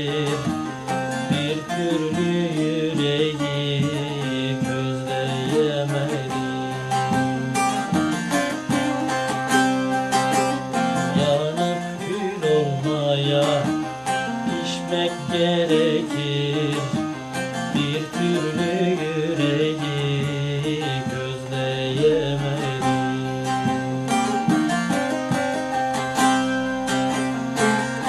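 Bağlama (Turkish long-necked saz) being played, a continuous run of quick plucked and strummed notes.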